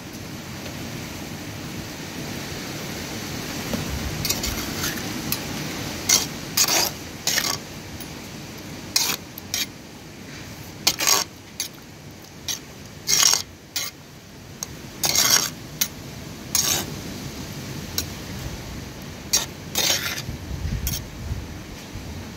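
A metal spoon stirs and turns wet marinated beef pieces in a terracotta clay pot. After a few seconds come irregular clinks and scrapes of the spoon against the clay sides and rim.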